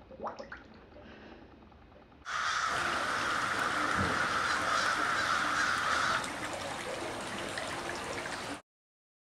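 A large flock of crows cawing together in a dense, overlapping din that starts suddenly about two seconds in and cuts off abruptly near the end.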